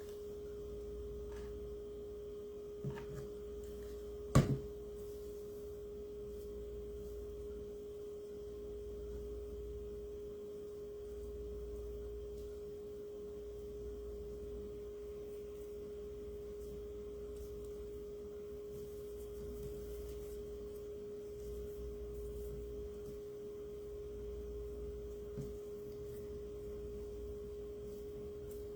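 A steady, faint single-pitched hum over a low rumble, with one sharp knock about four seconds in and a couple of small clicks, like small craft items being set down on a table.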